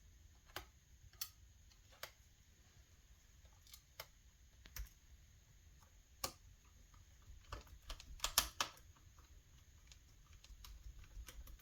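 Scattered light clicks and taps from handling the laptop's plastic and metal parts during reassembly, with a quick cluster of several clicks a little past the middle.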